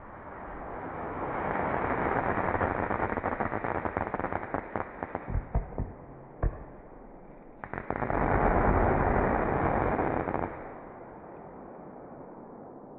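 El Gato Single Row Farfalla F3 firework battery firing its shots of silver whirls (farfalla) with crackle. A loud hiss builds and breaks into dense crackling, with a few sharp bangs about six seconds in. A second long hiss starts suddenly at about eight seconds, stops at about ten and a half, and fades to a faint tail.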